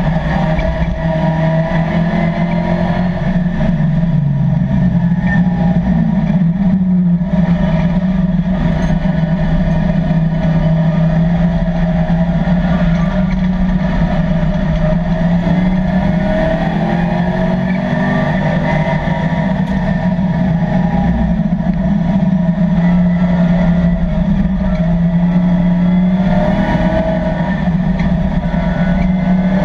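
LS3 V8 engine of a 1987 Camaro Z28 race car at racing speed, heard from inside the caged cockpit. Its note rises and falls with the throttle through the corners.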